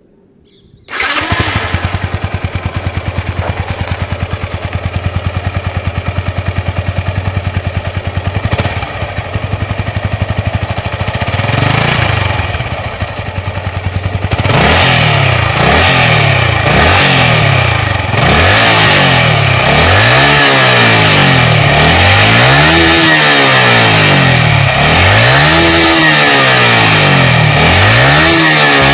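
Yamaha R15 v2's 150 cc single-cylinder engine idling steadily, then, about halfway through, revved repeatedly on the stand, the pitch rising and falling about once every second and a half.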